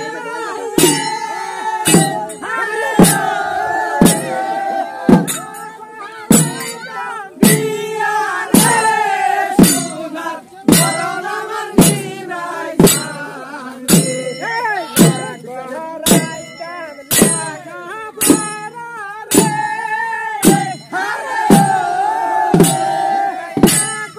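A group of men singing a folk chant together, with sharp percussive strikes keeping a beat about once a second.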